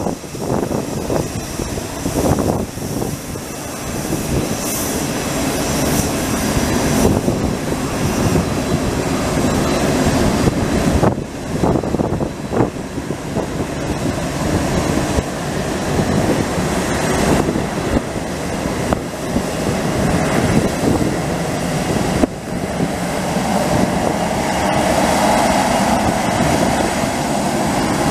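Boeing 787-8 Dreamliner's jet engines running at low taxi power, a steady loud rumble and hum that swells a little toward the end.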